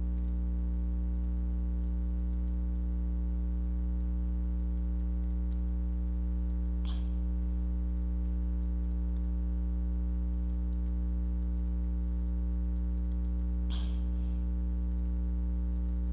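Steady electrical mains hum picked up by the microphone, a constant buzz with many overtones. Two faint, short clicks come through it, about halfway and near the end.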